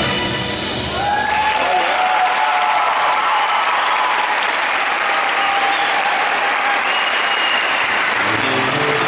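Audience applauding as the routine's music ends about a second in; music starts again near the end.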